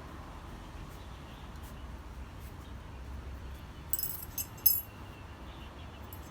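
Steel pieces clinking and ringing briefly, a quick cluster of sharp metallic clinks about four seconds in, over a low steady hum in the shop.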